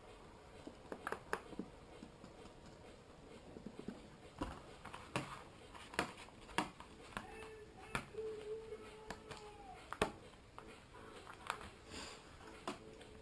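Irregular taps, clicks and knocks of a paintbrush dabbing paint onto a silicone dive mask on a mannequin head and working the paint in a plate.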